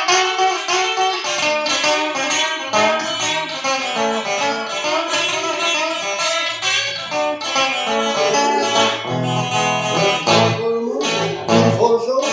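Plucked-string guitar music, fast notes picked in a rhythm, with bass notes coming in about three quarters of the way through.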